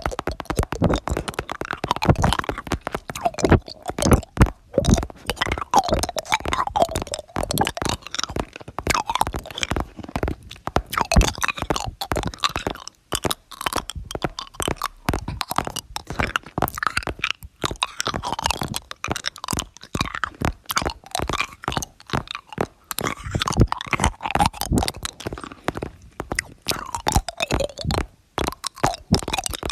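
Close-miked crunchy chewing: food being bitten and chewed with many sharp crunches in quick succession, as in an eating ASMR track.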